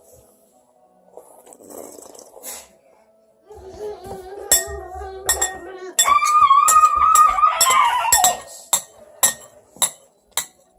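A spoon clinking against a breakfast bowl, a sharp click about every half second through the second half. Alongside it, through the middle, runs a held, sung-sounding pitched tone that bends downward and stops just after eight seconds.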